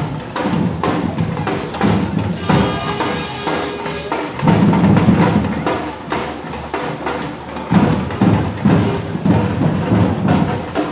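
Music with drums and other percussion striking repeatedly, with pitched instruments sounding in between.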